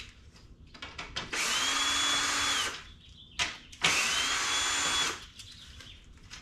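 Cordless drill backing out screws from a plastic truck grille: two short runs of just over a second each, whirring up in pitch, holding steady, then winding down, with a sharp click between them.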